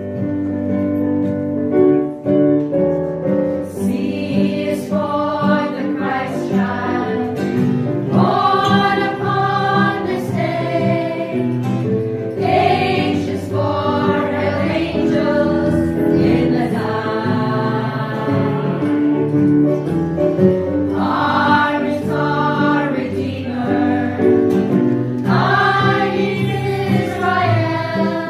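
A choir of carolers singing a Christmas carol.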